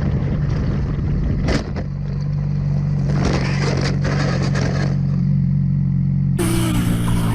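A vehicle engine runs with a steady low drone under road and wind noise. There is a short sharp noise about a second and a half in, and a stretch of scraping noise in the middle. The sound changes abruptly near the end.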